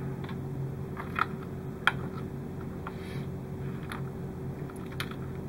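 A few small, sharp clicks and ticks of wires and small parts being handled against a plastic model hull, the loudest about two seconds in, over a steady low hum.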